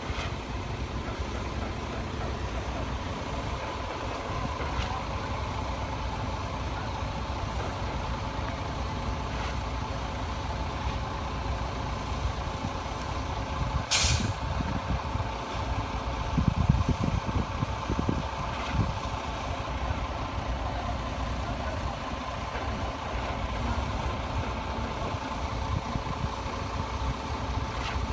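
Diesel engines of heavy construction machinery, a tracked excavator and trucks, running steadily with a constant whine. About halfway through comes a short burst of air hiss, and a couple of seconds later a few low thuds.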